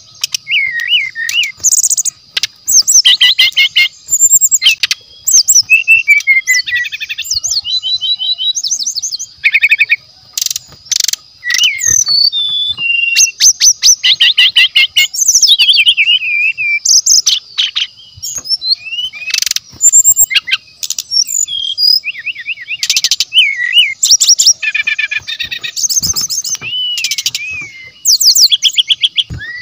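Brown-chested jungle flycatcher singing a fast, varied stream of whistles, trills and sweeping notes with only short gaps, over a steady high-pitched tone.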